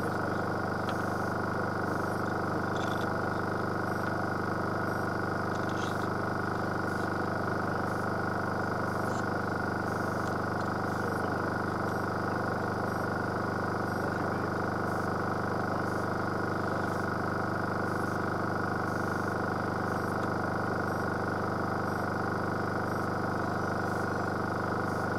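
Steady hum made of several fixed, unchanging tones over a faint hiss, with a few faint ticks near the start.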